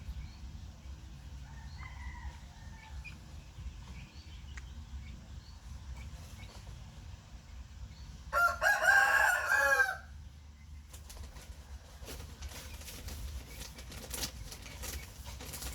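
A rooster crows once, a single loud call of about a second and a half starting about eight seconds in. Light clicks and rustles follow near the end.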